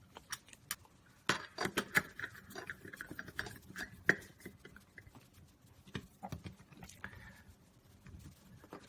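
Screw being driven back into a dishwasher's cover: a run of small clicks and scraping, with one sharper click about four seconds in.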